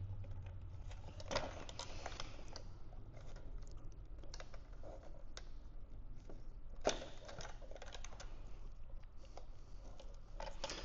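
Light scattered clicks and plastic handling noises from a Honda Civic fuel pump top hat assembly as its wires are worked out of a plastic retaining clip, with one sharper click about seven seconds in.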